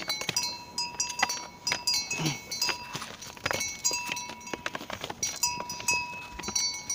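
Bells on walking bullocks ringing and clinking on and off in several steady pitches, mixed with scattered sharp knocks.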